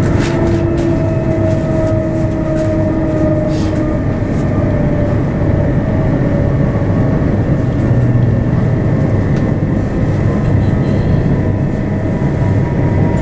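c2c electric passenger train running along the track: a steady rumble with several steady whining tones, one of which fades out about four seconds in, and a few sharp clicks in the first few seconds.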